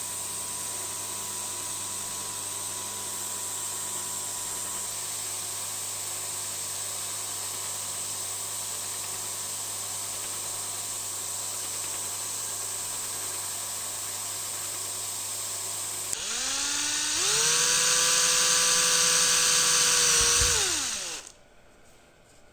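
Workshop power tools running: a steady hissing hum for most of the time, then an electric motor spins up, runs louder at steady speed for about three seconds, and winds down.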